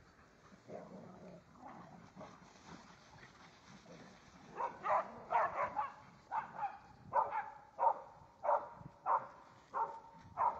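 A dog barking repeatedly, about two barks a second, starting about halfway through.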